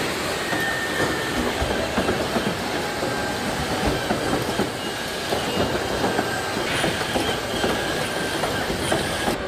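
Car-factory body-shop machinery: industrial robots working on an aluminium car body, a dense steady clatter of clicks and metallic knocks with a few brief high whines.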